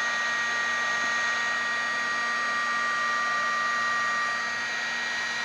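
Electric heat gun (paint stripper gun) blowing hot air steadily, a rush of air with a steady whine over it, while it heats a PC board to melt the solder so the components come loose. One strand of the whine drops out near the end.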